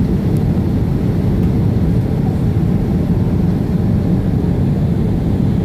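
Steady low rumble of a Boeing 767-300 airliner's engines and rushing air, heard inside the cabin on final approach with the flaps extended.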